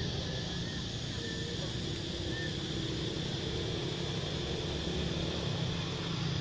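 A steady low engine hum, like a motor idling, under an even background hiss, with a few faint short high chirps in the first half.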